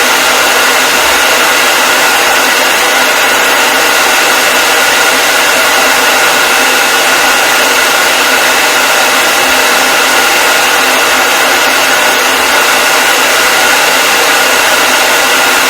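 Hair dryer running steadily: an even, unchanging rush of blown air with a faint steady whine in it.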